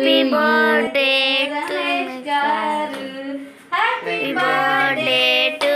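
Singing, led by a child's voice with a woman's voice along with it, in long held notes that glide from one pitch to the next, with a short break a little past the middle.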